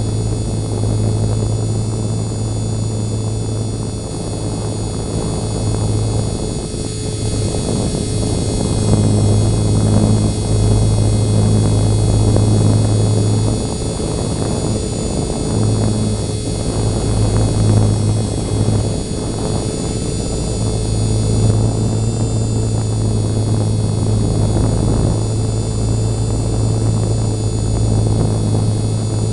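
E-flite MSR micro RC helicopter's small electric motors and rotor blades running at near full throttle in flight: a steady hum with a thin high-pitched whine over it, dipping briefly now and then as the throttle shifts.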